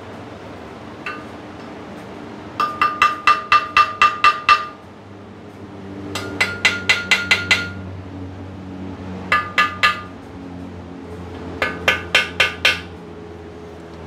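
New main bearing dowel pins being tapped down into an air-cooled VW 40 HP engine's case half to seat them fully in their holes. Four runs of quick, ringing metal taps, about four or five a second, one run for each dowel, each ringing at a slightly different pitch.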